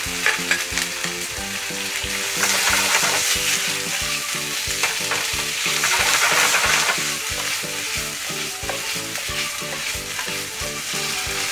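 Cucumber and canned tuna sizzling in a hot nonstick frying pan over a gas flame while being stirred with long cooking chopsticks; the sizzle swells in the middle.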